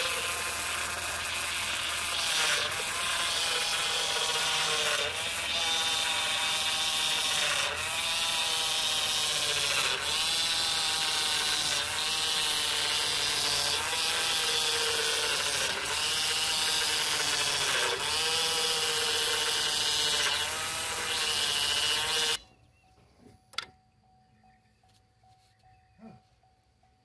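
Power steering pump whining loudly on the running engine of a 2006 Chevy Impala, its pitch sagging and recovering about every two seconds as the steering wheel is turned from lock to lock to work air out of the freshly filled system. The whine cuts off suddenly near the end, leaving only faint clicks.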